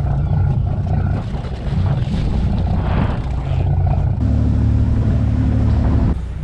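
A boat's engine running steadily as a low hum, with water and wind noise over it; the engine note changes about four seconds in.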